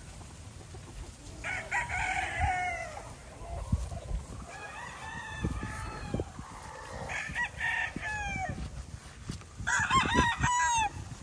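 Gamefowl roosters (stags) crowing, about four crows one after another, the last and loudest near the end.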